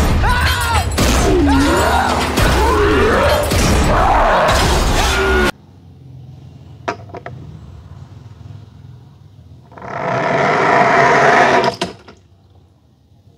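Loud cartoon soundtrack music with crash effects, cut off abruptly after about five and a half seconds. Then faint room sound with a couple of clicks, and near the end a loud rushing noise lasting about two seconds.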